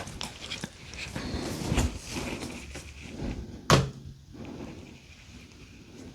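Small objects being picked up and set down on a newly assembled organizer: rustling and light knocks, with one sharper knock a little past halfway.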